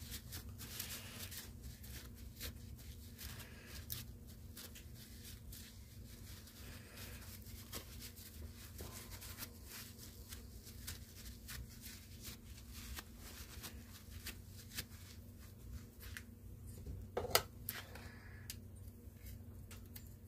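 Faint rustling and light clicks of a rag wiping a small engine's head gasket and the gasket being handled against the metal cylinder, over a steady low hum. One sharper knock comes late on.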